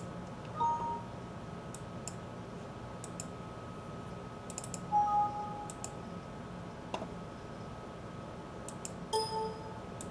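Computer mouse clicks and three short two-note computer alert chimes as dialog boxes pop up: about half a second in, near five seconds and about nine seconds in. Under them runs a faint steady high whine and low hum.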